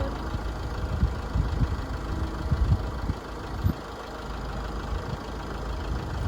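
Engine of a piece of heavy machinery idling steadily, with several dull low thumps during the first four seconds.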